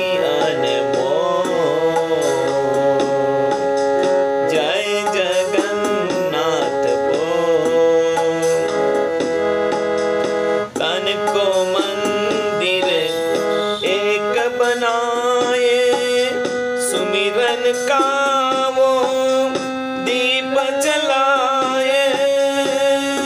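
Background music: Indian-style music with tabla drumming, steady held keyboard-like chords, and a wavering melody line.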